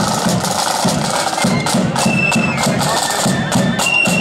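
Marching flute band playing: a shrill flute tune with held notes that step from one pitch to the next, over quick side-drum strokes and a steady low drum beat.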